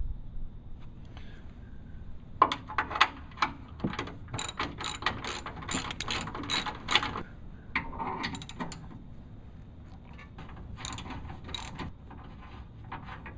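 Hand ratchet wrench clicking as it loosens the bolts of a factory rear bumper, in two spells of quick clicks with a pause between them.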